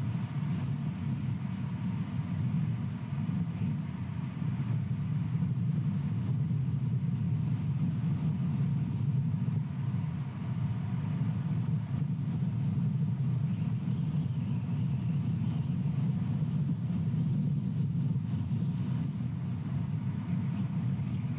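Steady low rumble of wind buffeting the nest camera's microphone.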